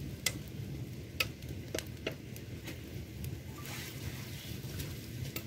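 Wood fire burning, crackling with a few sharp pops over a low, steady rush of flames. Around four seconds in there is a brief rustle as sticks are added to the fire.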